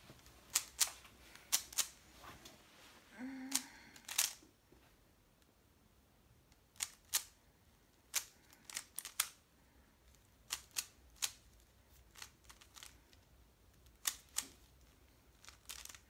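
Plastic 3x3 Rubik's cube being turned by hand: sharp clicks of the layers snapping round, often in pairs or short runs, with pauses between.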